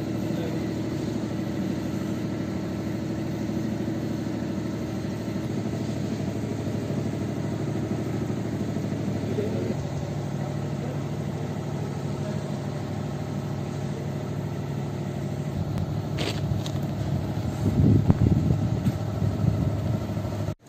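An engine idling steadily. Its note changes about ten seconds in, and there is a louder, rougher stretch near the end.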